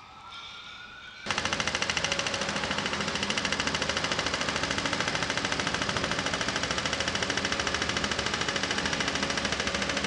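A faint rising whine, then about a second in a pavement breaker starts abruptly and keeps hammering in a rapid, steady stream of blows.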